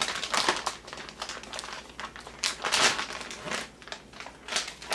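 Plastic packaging crinkling and rustling in irregular bursts as a motherboard is unwrapped, likely from its anti-static bag.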